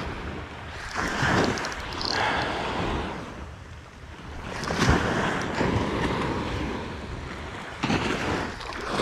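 Surf washing up on a sandy beach in several surges, with wind buffeting the microphone.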